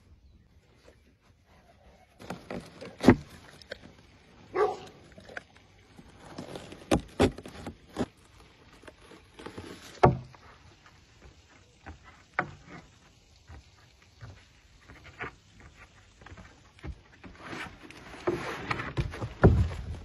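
A lioness gnawing and tugging on wood and a stick: irregular knocks, scrapes and clicks, the sharpest about three and ten seconds in. A denser stretch of scuffing noise with low thumps comes near the end.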